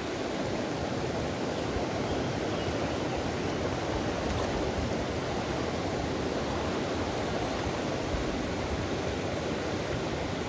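Steady rush of flowing river water, even and unbroken.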